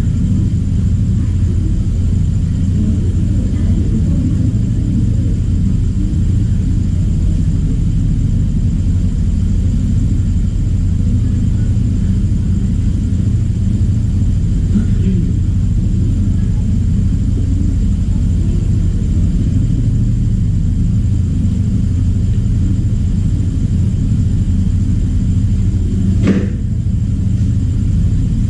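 A steady low hum with a faint high whine above it, broken once by a sharp click about two seconds before the end.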